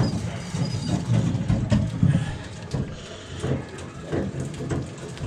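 Boat's Detroit Series 60 diesel engine running steadily at idle, a low rumble, with a few knocks and rustles from a fish being unhooked on deck.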